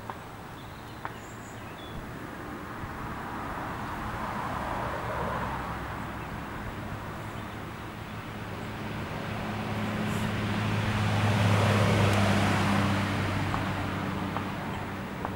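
A motor vehicle passing by: a rushing noise swells and fades about four seconds in, then swells louder with a low, steady engine hum to a peak near the end before fading away.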